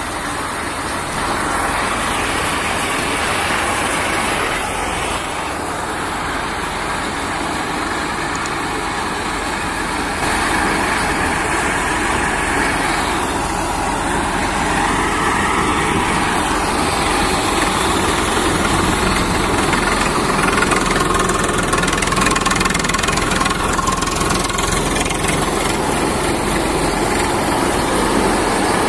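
Tractor-driven groundnut thresher running steadily: the tractor's diesel engine working under load together with the churn of the threshing drum, with no breaks. It gets a little louder about ten seconds in.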